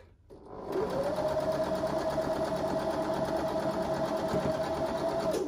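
Electric domestic sewing machine stitching a straight seam through layered patchwork fabric: the motor starts about half a second in, its whine rising as it gets up to speed, runs steadily, then stops abruptly at the end.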